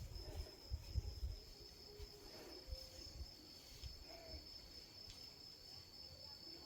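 Crickets trilling at night in one steady, high-pitched, faint drone, with some low rumbling in the first second and a half.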